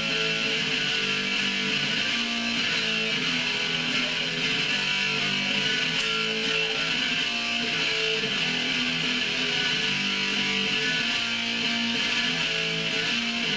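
Electric guitar played through a Big Muff fuzz pedal, strumming held chords that change every second or two, for a sound check.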